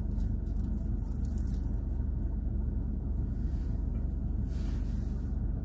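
Steady low rumble of an idling car, heard from inside the cabin, with a few faint crackles of a flaky patty crust and its paper wrapper as it is bitten and chewed.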